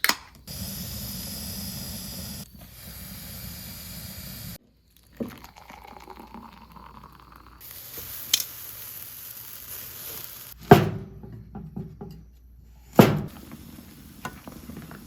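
Short clips of hissing and sizzling noise, cut together so the background changes abruptly several times, with scattered small clicks and two heavy, sharp knocks about eleven and thirteen seconds in.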